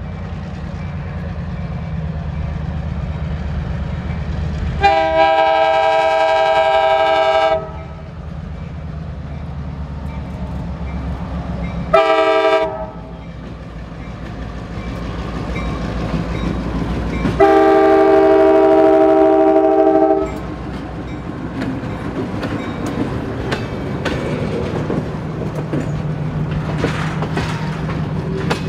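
EMD GP15-1 diesel locomotive approaching and passing, its engine running steadily and growing louder as it nears. It sounds its multi-note air horn three times: a long blast about five seconds in, a short one about twelve seconds in, and another long one around seventeen seconds in. In the last several seconds the tank cars roll past with clicking wheels over the rail joints.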